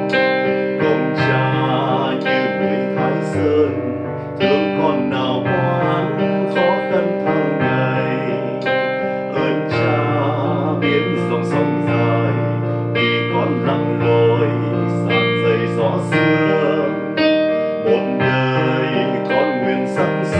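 A man singing a Vietnamese song, accompanied on a digital piano.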